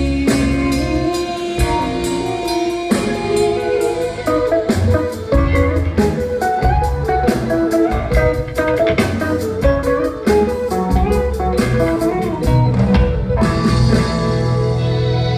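Live rock band playing an instrumental passage, heard from the audience: electric guitar and bass over busy drum-kit strokes. Near the end the drumming drops out, leaving a held keyboard chord.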